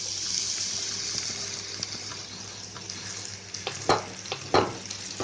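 Diced cucumber dropped into hot tempering oil, sizzling loudly as it lands and then easing to a softer fry. Two sharp metal clinks of the steel spatula against the pan come about four seconds in.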